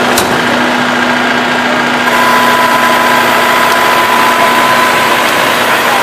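Metal World combine harvester running steadily and loud at close range, its engine and threshing machinery humming as grain is unloaded, with a steady higher whine joining about two seconds in.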